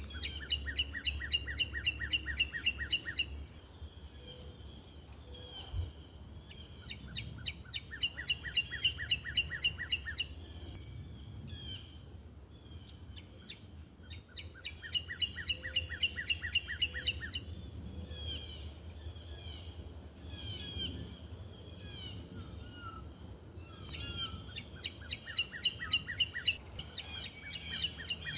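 Birds singing: one bird repeats a rapid trilled phrase about three seconds long four times, with softer, scattered chirps from other birds between, over a low steady rumble.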